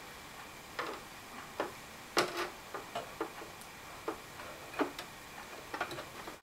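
A dozen or so light, irregular clicks and knocks as a GTX 285 graphics card and its metal bracket are worked into the PCIe slot of a Mac Pro case.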